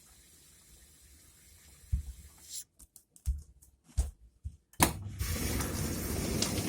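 A few dull knocks, then about three-quarters of the way in a sudden, steady rush of water flowing through an open solenoid water-inlet valve.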